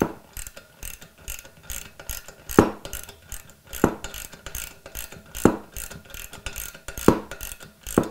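Ratchet wrench clicking as it drives a threaded plug down into an engine crankcase, a run of quick fine pawl clicks with a louder click about every second and a half as each stroke ends.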